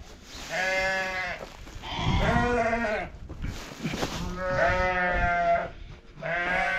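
Sheep bleating, about four wavering calls one after another: the flock calling for feed.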